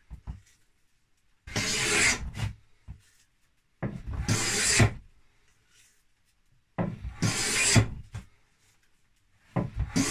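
Wooden scraping plane pushed across a wooden board in four strokes of about a second each, roughly every three seconds, rasping as it lifts fine shavings.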